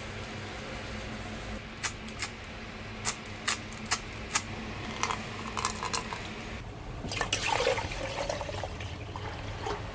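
A handful of sharp clicks and taps as salt is tipped into a plastic measuring jug and a bottle is handled. About seven seconds in, liquid is poured into the jug, splashing as it fills.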